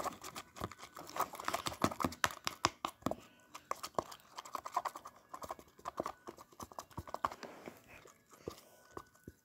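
Sticky homemade slime squeezed and kneaded by hand in a plastic container: irregular wet squelches and clicking pops, growing sparser near the end.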